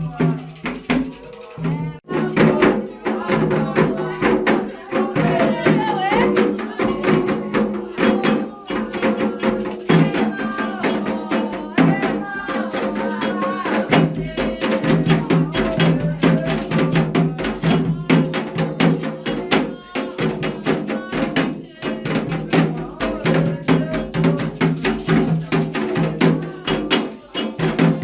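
Afro-Brazilian religious percussion music with singing: drums struck in a dense, fast pattern, with a wood-block or bell-like click, under voices carrying a melody.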